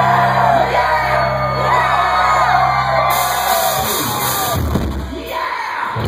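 Live rock band playing loud through the venue's sound system while the crowd yells and sings along. A held low bass note cuts off about three and a half seconds in, and the crowd keeps shouting.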